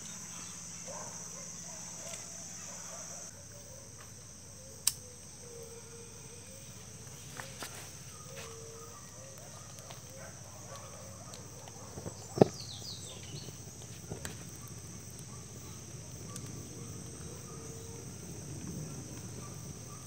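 Insects trilling steadily at a high pitch, with a couple of sharp clicks about five and twelve seconds in.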